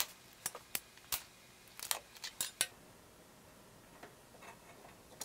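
Wire strippers and wires being handled on a workbench: a quick run of about seven sharp clicks and snips in the first three seconds, then a few faint ticks.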